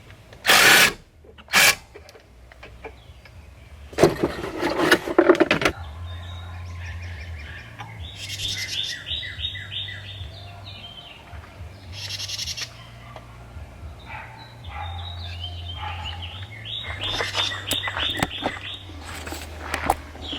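An impact gun with a socket fitted run in short bursts: two brief ones, then a rattling one of about two seconds. After that come quieter runs of rapid chirping clicks that come and go.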